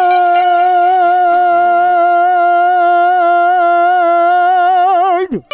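A singer holds one long, loud sung note with a slight waver for about five seconds in a Gujarati devotional folk song, then drops away sharply near the end.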